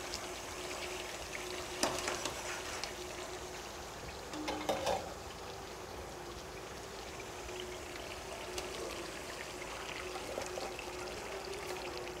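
Pots of stew on a gas stove: a faint, steady hiss and hum, with a few light clinks of metal spoons against the pots.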